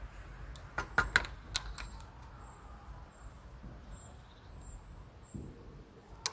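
A handful of sharp plastic and metal clicks and knocks as a DSLR on a tripod head is handled and adjusted, most of them in the first two seconds and one more at the very end. Faint high chirps repeat several times through the middle.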